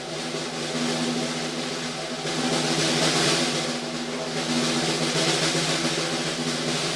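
Continuous snare drum roll on a Mapex Black Panther Fastback 12x7 six-ply maple snare tuned low, the shell and heads ringing under the strokes. The roll swells louder and eases off a few times.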